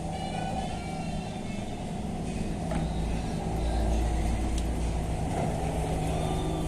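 A steady low mechanical rumble with a constant hum, like a running motor or engine, growing louder about three to four seconds in.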